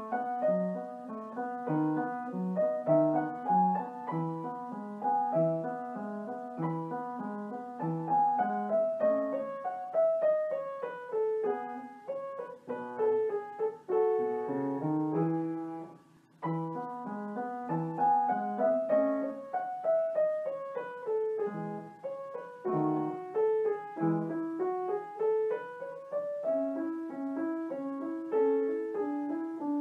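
Background piano music: quick runs of notes rising and falling, with a brief break about sixteen seconds in.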